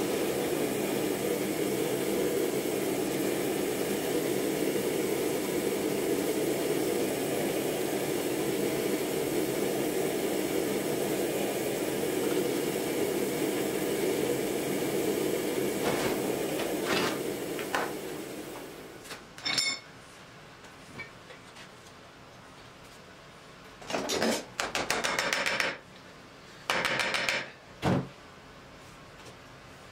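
Forge burner running with a steady rushing hiss while an axe head heats in it, fading out after about eighteen seconds. Then comes a single metallic clink and a few short scraping bursts.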